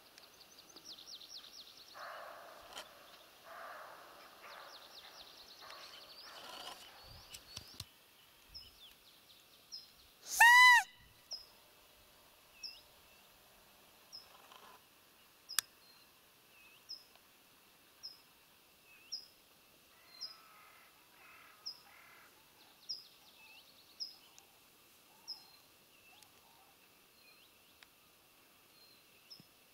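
A roe deer call (hunter's lure) blown once, giving a single loud, high peep that rises and falls in pitch, imitating a roe deer. Around it, birdsong: fast high twittering at first, then a bird repeating a short high chirp about once a second.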